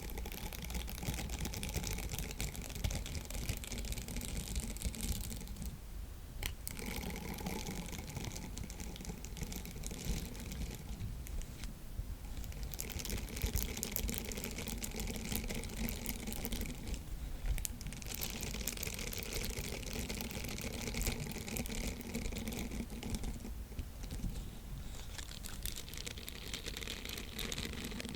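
Silicone sponge handled close to the microphone, giving a dense, fine crackle that comes in stretches of about five seconds with short pauses between them.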